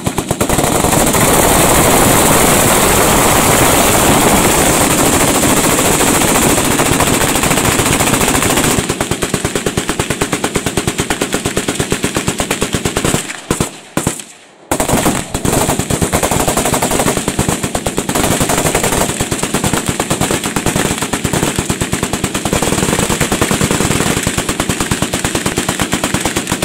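Several light machine guns firing full-auto at once in a long barrage, the shots blending into one continuous noise at first and becoming more separate after about nine seconds. The firing drops away briefly about halfway through, then picks up again with rapid shots.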